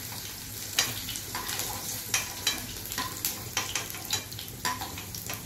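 Okra frying in hot oil in a nonstick kadai, sizzling with irregular sharp crackles, while a slotted spatula scrapes and taps against the pan as the fried pieces are lifted out.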